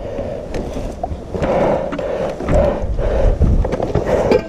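A rider panting and grunting hard with effort while hauling a dirt bike up a steep slope, a quick heavy breath about every half second, close to the microphone, over a low rumble of handling noise.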